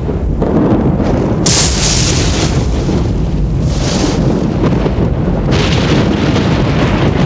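Loud, continuous deep rumble with surges of rushing, hissing noise about a second and a half in, around four seconds in, and again from about five and a half seconds.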